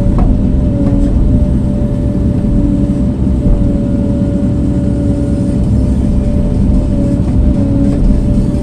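A motor running steadily: a loud low drone with a steady hum whose pitch dips slightly now and then.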